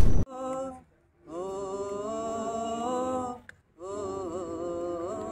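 A loud intro sound effect cuts off just after the start, then young men sing a slow Hindi song unaccompanied, in three long drawn-out phrases with short breaks between them.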